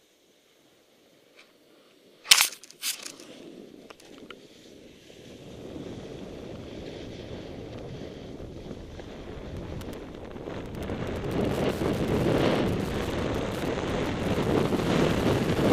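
Near silence, then two sharp knocks about two seconds in. From about five seconds a rushing noise builds and grows louder as the snowboard gathers speed downhill: wind buffeting the helmet camera's microphone and the board sliding over packed snow.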